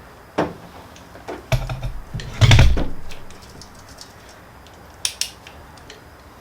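Metal tools clicking and clanking on an engine as it is turned over by hand to top dead center for cam timing, with a heavier clunk about two and a half seconds in and a few sharp clicks around it.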